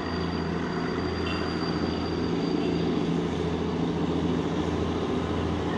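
Darjeeling Himalayan Railway narrow-gauge diesel locomotive running steadily as it hauls two coaches along the track, a low engine drone with a thin high whine over it.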